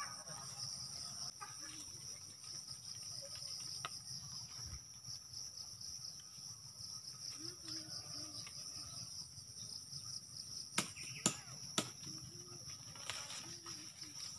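Steady high-pitched insect chorus, with three sharp knocks about half a second apart near eleven seconds in.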